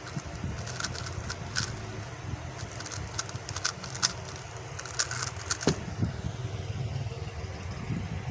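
QiYi X-Man Tornado V2M plastic speedcube being turned by hand: irregular sharp clicks of the layers snapping into place, several a second, over a steady low hum.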